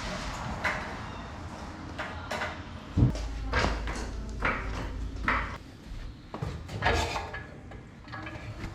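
Irregular knocks, clacks and scrapes of hand-held equipment being handled and set down, with one heavier thump about three seconds in.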